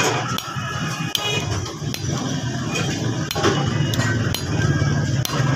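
Thin blade prying and scraping at the crimped metal rim of a Denso car horn to free its plate, giving scattered light metallic clicks over a steady low background hum.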